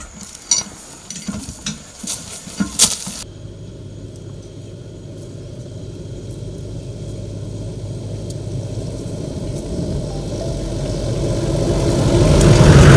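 A few sharp knocks in the first three seconds, then a 4x4 safari truck's engine approaching, growing steadily louder to its loudest near the end.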